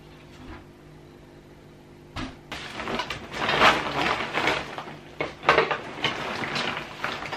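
Rummaging through a large plastic bag full of old toys: the bag rustles and crinkles and hard plastic toys clatter against each other. The noise starts about two seconds in and comes in loud, uneven bursts.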